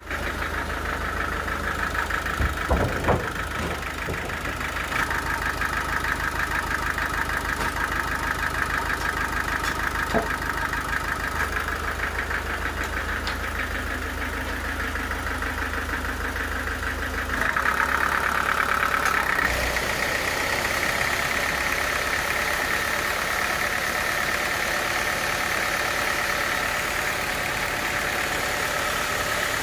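Sawmill machinery running with a steady engine-like drone and a fast rhythmic buzz, a few knocks about three seconds in and again about ten seconds in. About seventeen seconds in the sound changes and runs slightly louder from there.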